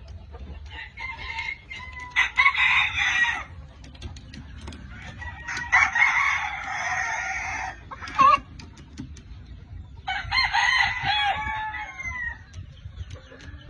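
Gray rooster crowing three times, each crow lasting about one and a half to two seconds, with shorter calls between the crows.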